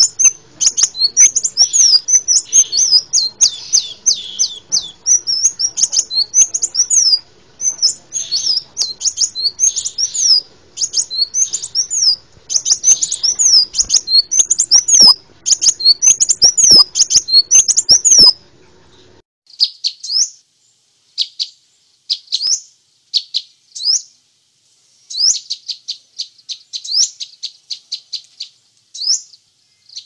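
Crimson sunbird calls from a recording: rapid runs of high, thin chirps with faint background noise behind them. About eighteen seconds in, the recording switches abruptly to sparser chirps with no background noise.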